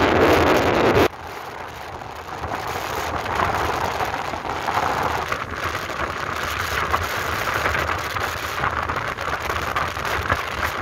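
Wind and road noise of a moving motorbike: loud wind buffeting on the microphone for about the first second, then a sudden drop to a steadier, quieter rushing hiss.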